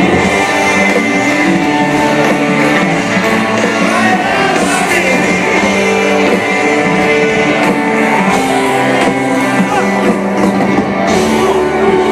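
Live rock band playing, with electric guitars and a singer, loud and continuous.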